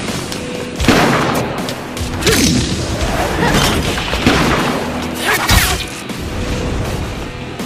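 Dramatic background music with several sudden booming impacts and whooshes: anime battle sound effects of an explosion with flying debris.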